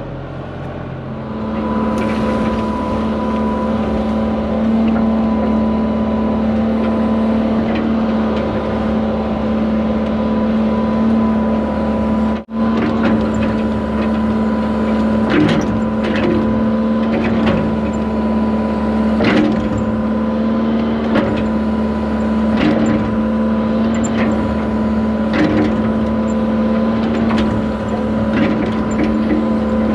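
Excavator's diesel engine running steadily at raised speed, stepping up about a second in. Scattered short knocks sound over the engine throughout.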